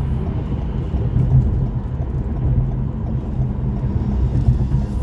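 Road noise inside a car moving at freeway speed: a steady low rumble that fills the cabin.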